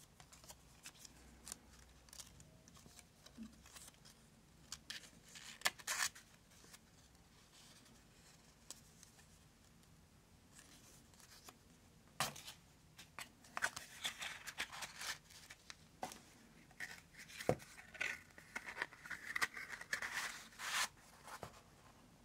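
A small card matchbox slipcase and folded paper concertina book being handled: scattered paper rustles, slides and light clicks, a few at first and busier in the second half.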